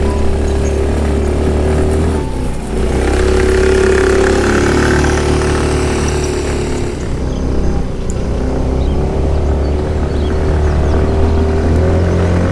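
Car engine and road noise while driving, a steady low drone that swells in the middle.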